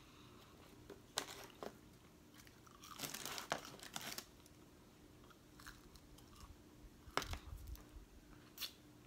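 Mouth crunching and chewing crisp French fries, with a few sharp crunches and a longer stretch of crunching about three seconds in.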